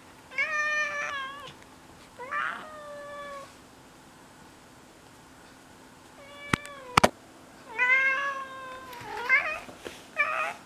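Domestic cat meowing repeatedly, about six meows, some long and drawn out. Two sharp clicks come about seven seconds in.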